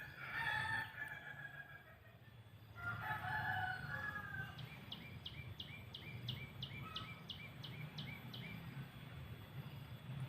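Birds calling: two longer pitched calls, then a quick run of about a dozen short descending chirps, roughly three a second. A low steady rumble runs underneath.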